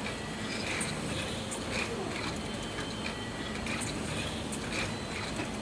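Siemens ADVIA 1800 chemistry analyzer running: a steady mechanical hum with irregular light clicks and ticks as its probe arms move, and a few short high tones.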